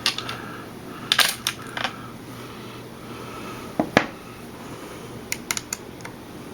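Small hard clicks and metallic clinks of precision screwdriver bits being picked through and one fitted into the driver: a few sharp clicks about a second in, the loudest knock near four seconds, and a quick run of light ticks a little later.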